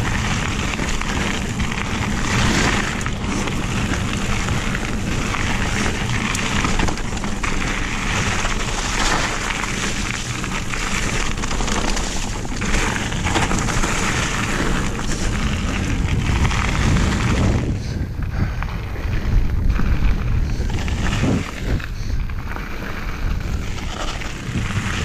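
Mountain bike ridden fast down a rough trail: wind buffeting the mounted camera's microphone, tyres rolling over wet dirt, stone and gravel, and the bike rattling and knocking over bumps. The hiss thins out about two-thirds of the way through.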